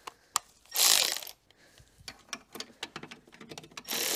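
Cordless electric ratchet running in two short bursts, undoing the rear gearbox-mount bolt: once about a second in and again near the end. Small clicks and taps of tool on metal come between the bursts.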